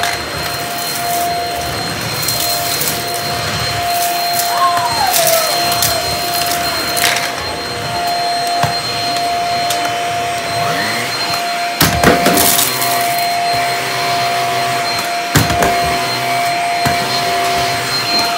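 Bissell cordless stick vacuum running with a steady whine while its floor head sucks up crunchy debris from a hardwood floor, in scattered crackles and clicks, a few louder ones in the second half.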